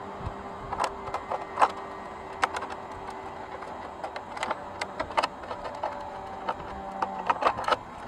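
Scattered small clicks and creaks as hands squeeze a plastic superglue bottle and press the broken EPP foam pieces of an RC plane's fuselage together, with a cluster of clicks near the end. A low steady hum runs underneath.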